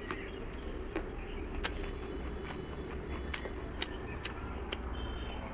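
Close-up chewing of a mouthful of rice: a string of short, sharp wet mouth clicks and smacks, about two a second, over a steady low hum.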